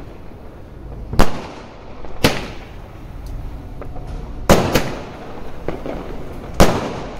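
Diwali firecrackers going off: sharp bangs every second or two, with fainter pops in between, each bang trailing off in a short echo.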